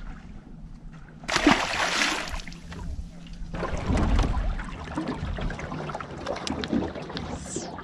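Water splashing and sloshing around a small boat, with a loud rush of noise about a second in and scattered clicks of handling after it.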